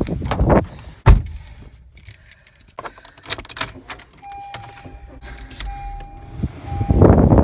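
Getting into a car: a door thumps shut about a second in, keys jingle and click, then the car's warning chime sounds in a steady tone that starts and stops several times. A loud rush of noise comes in near the end.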